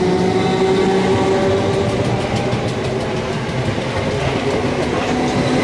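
Class 455 electric multiple unit moving past along the platform: a steady traction-motor whine made of several tones over the rumble of wheels on rail, with a few clicks over rail joints around the middle and a tone rising slightly near the end.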